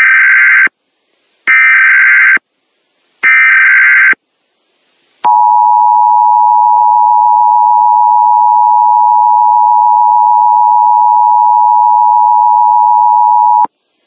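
Emergency Alert System signal opening a tornado warning: three short bursts of harsh digital data tones (the SAME header), then the steady two-tone attention signal, 853 and 960 Hz together, held for about eight seconds before cutting off sharply near the end.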